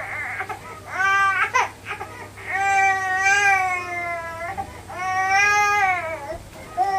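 Baby crying in three drawn-out wails, the longest about two seconds, each trailing off lower in pitch at its end.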